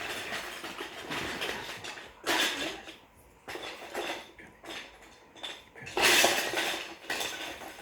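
GraviTrax plastic track and tower pieces clattering as they are handled and fitted together, in irregular bursts with the loudest clatter about six seconds in.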